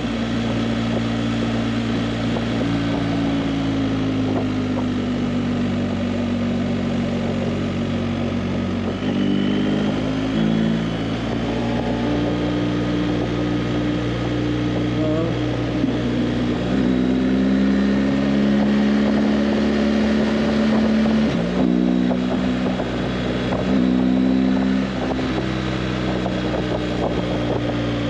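Motorcycle engine running at road speed, steady and loud, its pitch dipping and rising a few times, around 10, 17 and 21 seconds in, with throttle or gear changes.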